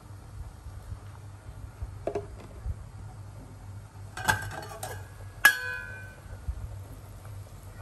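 Stainless steel pot lid clinking as it is lifted off a pot on the stove, with a loud ringing clang about five and a half seconds in as it is set down. A steady low hum sits underneath.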